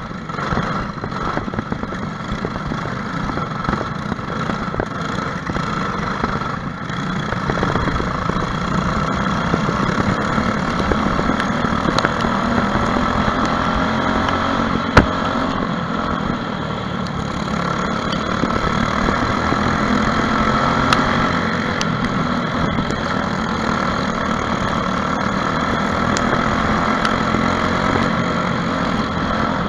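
Briggs & Stratton LO206 single-cylinder four-stroke kart engine running steadily under racing load, heard from on board, with other karts' engines around it. A single sharp knock stands out about halfway through.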